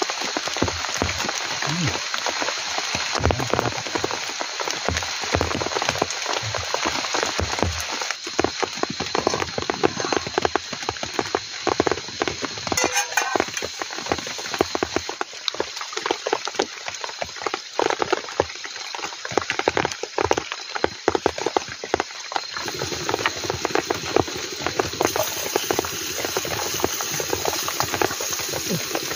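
Heavy rain pattering steadily, a dense crackling patter of many drops with no let-up.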